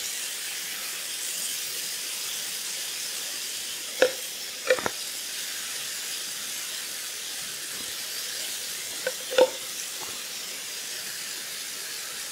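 Venison loin sizzling in a hot stainless-steel frying pan, a steady hiss, with a few short clinks of a spoon, twice about four to five seconds in and twice around nine seconds.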